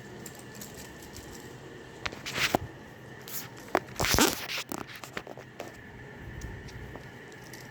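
Handling noise: a few short scrapes, rustles and clicks over a faint steady background, the loudest a scraping rustle about four seconds in.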